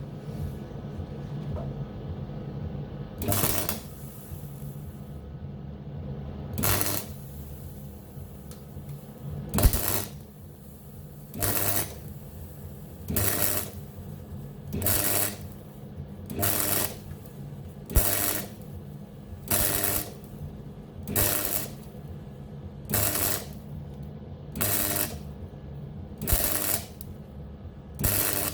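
MIG welder firing in short bursts, about half a second to a second each and repeating roughly every one and a half to two seconds, as a plug weld is stitched across a hole in steel using the push technique. A low steady hum runs underneath.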